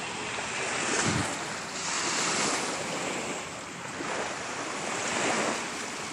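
Small waves washing onto a beach, the noise swelling and falling every second or two, with wind noise on the microphone.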